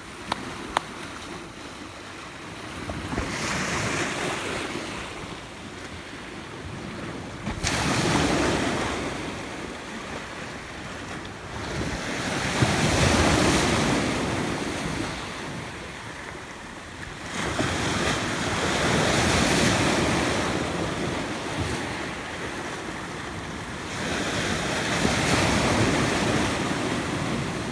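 Sea waves breaking and washing in, swelling and fading in slow surges about every five to six seconds.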